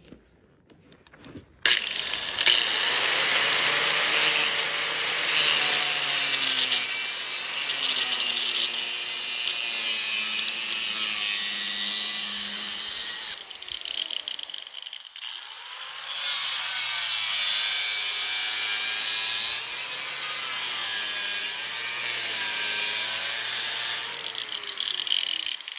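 Angle grinder with a cutoff wheel spinning up and cutting, a steady high grinding whine. It winds down about halfway through, then starts again and cuts a second time until just before the end.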